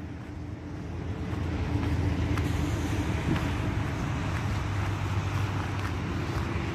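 Steady low rumble of background noise, growing a little louder about a second in, with a few faint ticks.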